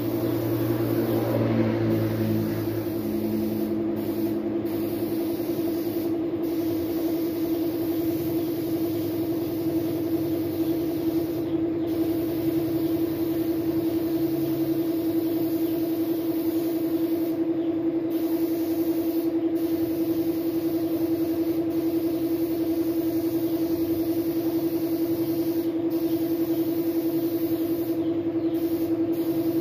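Air spray gun hissing steadily as it sprays clear coat onto a motorcycle frame, the hiss breaking off briefly several times as the trigger is let go, over a steady low hum.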